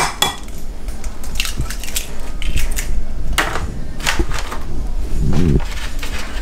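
Fresh chicken eggs being cracked open, several sharp shell cracks spread about a second apart.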